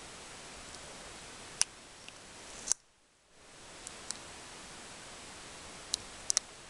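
Steady hiss with a few sharp clicks of handled plastic toy parts scattered through, two of them close together near the end. The hiss cuts out for about half a second a little before the middle.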